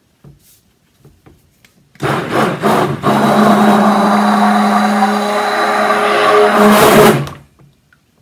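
Hand-held immersion (stick) blender mixing goat-milk lye solution into soap oils in a plastic container, making cold-process soap batter. It starts with a few short pulses about two seconds in, then runs steadily for about four seconds and stops.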